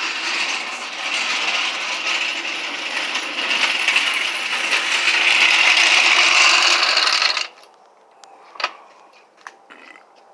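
Loud continuous metallic rattling and scraping, thick with small clicks, that cuts off suddenly about seven and a half seconds in. A single sharp clack follows about a second later.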